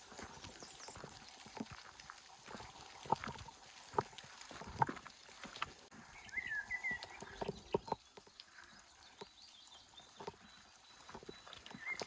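Rain falling in woodland as a steady hiss, with scattered drips and knocks. About six seconds in, a bird calls a few short falling chirps.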